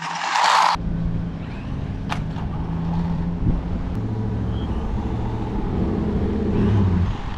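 A short loud hiss that cuts off suddenly under a second in, then the electric motor and drivetrain of a toy-grade RC monster truck running over concrete: a steady low hum with tones that come and go in steps as the throttle is worked.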